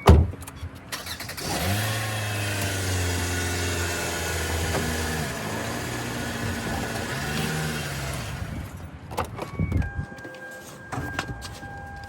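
A car door shuts, then the car's engine starts about a second and a half in and runs steadily while the car is moved forward a short way, its note shifting near the end before it is switched off about eight seconds in. A few clicks and knocks follow, then a steady vehicle warning chime sounds.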